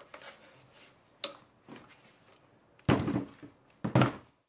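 Tripod legs knocking on a tabletop as they are handled and set down: a faint click, then two short, duller knocks about three and four seconds in.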